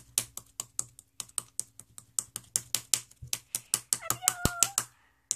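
Plastic spoon rapidly slapping a soft, bouncy slime, making quick sharp sticky clicks, about six a second. A short squeaky tone comes in about four seconds in.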